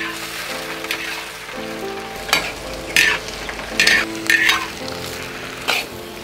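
Leafy greens sizzling as they stir-fry in a hot wok, with a metal spatula scraping against the wok five times in the middle of the stretch.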